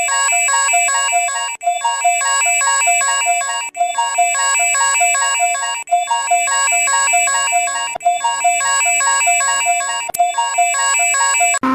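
Electronic alarm tone: a fast synthesized melody of ringing notes, repeating in a loop about every two seconds, cut off just before the end.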